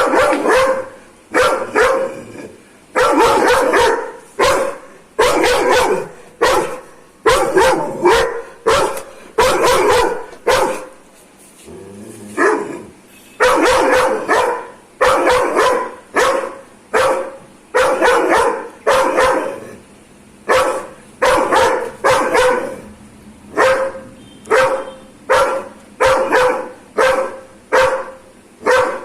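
Doberman barking aggressively, a steady run of loud barks about one or two a second, pausing briefly about halfway through before starting again.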